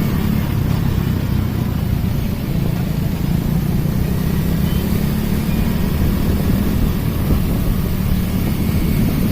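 Steady low rumble of busy city street traffic, cars and motorbikes running.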